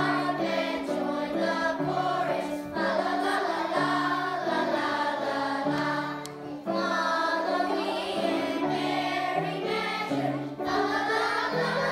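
Children's choir singing, the voices holding and changing notes in a continuous melody.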